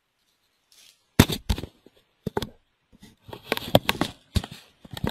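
An irregular run of sharp knocks and clicks with short rustles between them, starting about a second in: handling noise close to the microphone.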